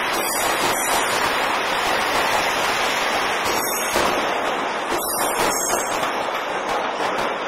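Trains moving through the station tracks: a steady rushing rail noise with a few sharp clacks, about five in all, as wheels pass over switches and rail joints.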